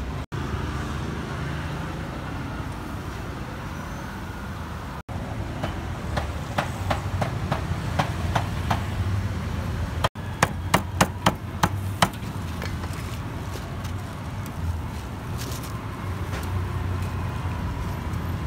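Cleaver chopping grilled beef with sharp knocks in runs, starting about five seconds in and quickening after about ten seconds, over steady street and traffic noise.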